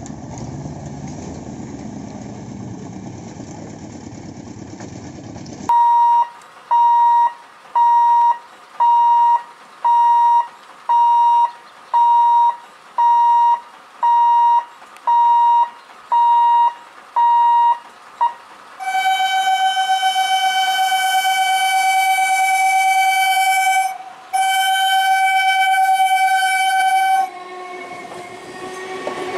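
Road traffic at a level crossing, then, after a cut, a pitched tone beeping about once a second, about a dozen times. Then an EMU local train's horn sounds long and loud, with a brief break, and near the end the train passes.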